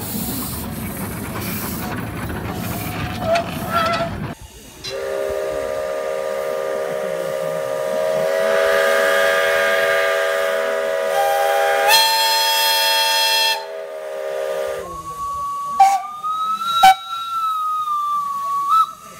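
Several narrow-gauge steam locomotive whistles sound together in one long chord lasting about ten seconds, with another higher whistle joining part way through. Before them is the running noise of a small open passenger carriage on the track. After the chord ends, a single higher whistle wavers on alone for a few seconds, with a couple of sharp clicks.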